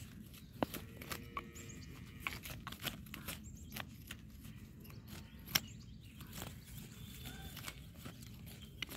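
Irregular crackling and snapping of dry soil and weeds as weeds are pulled by hand between onion plants, with a louder sharp click about half a second in and another about five and a half seconds in.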